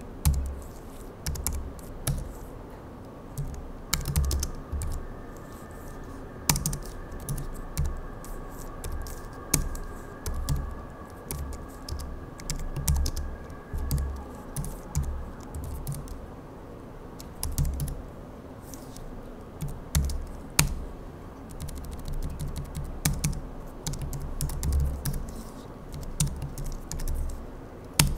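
Typing on a low-profile backlit computer keyboard: runs of quick key clicks, each with a soft knock, in uneven bursts broken by short pauses.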